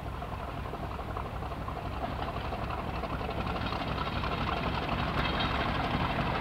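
Heritage diesel locomotive engine running and growing steadily louder as it approaches.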